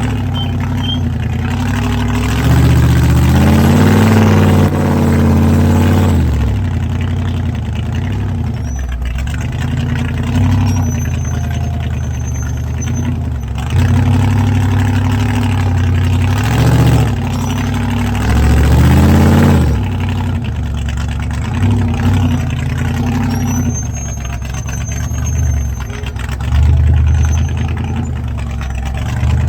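Off-road rock-crawling rig's engine working a rocky trail: it idles and revs in repeated bursts, rising and falling, as the rig is driven over boulders. Brief high squeaks come and go between the revs.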